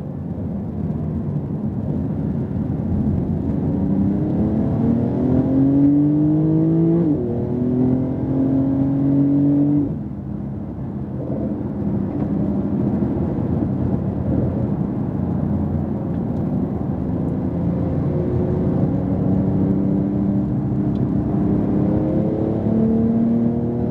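Porsche 911 Turbo S twin-turbo flat-six heard from inside the car under acceleration on track: the engine note rises, drops with an upshift about seven seconds in, eases off as the throttle lifts around ten seconds, then climbs again near the end, over steady tyre and road noise.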